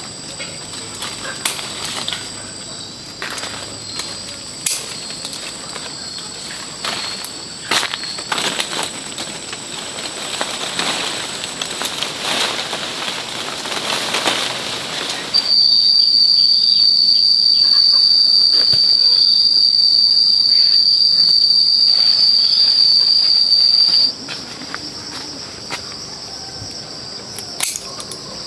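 Insects droning in thin, steady high tones, with scattered clicks and leaf rustles as the fruit and branches are handled. A bit past the middle, a much louder single high insect drone takes over for about eight seconds, starting and stopping abruptly.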